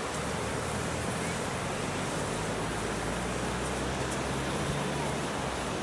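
Steady rush of wind and ocean surf, with a low steady hum of the towing car's engine underneath that drops away near the end.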